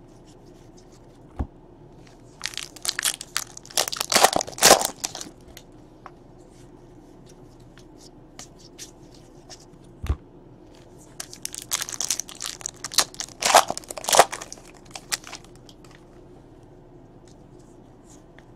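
Trading cards and their pack wrappers being handled: two spells of crinkling, crackling rustle, one a few seconds in and another about two-thirds of the way through, with a soft tap between.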